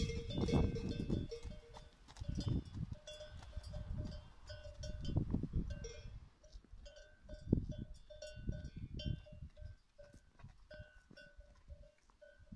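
A livestock bell clinking in short ringing notes, a few a second at irregular intervals, as a grazing animal moves, with low rumbles underneath.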